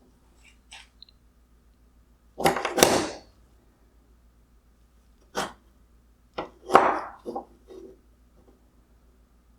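Hard plastic headlight parts being handled and set down on a hard surface: a few short knocks and clatters, the loudest a double clatter a couple of seconds in, then a single knock and a quick run of several more.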